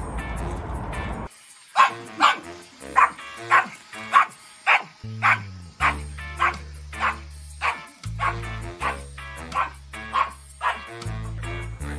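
A small dog barking in a long, even series, a little under two barks a second, over background music. The barking starts about a second and a half in.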